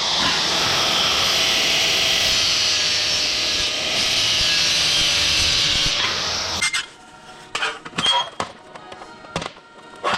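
A power tool working the rusty metal of a pedal car, a steady hissing rasp with a faint motor tone, stops about two-thirds of the way through. Scattered light clicks and knocks of parts being handled follow.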